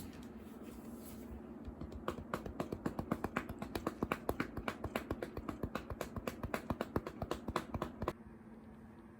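A rapid, irregular run of sharp clicks or taps, several a second, that stops abruptly about eight seconds in.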